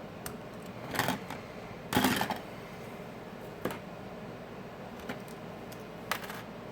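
Scattered light clicks and short knocks of small hard objects being handled on a workbench, the loudest a brief clatter about two seconds in.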